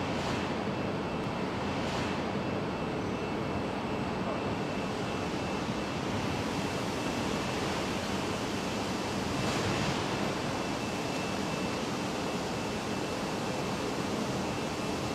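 Steady factory-floor background noise, an even rush of machinery and air with a faint thin high whine, swelling softly a couple of times.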